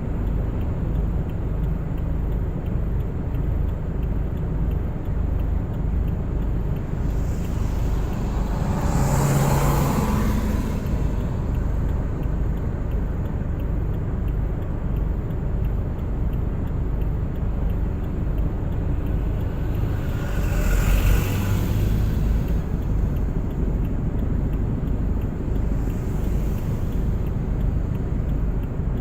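A car driving on a winter road: steady low rumble of tyres and engine, with two louder rushing swells, about ten seconds in and again about twenty-one seconds in.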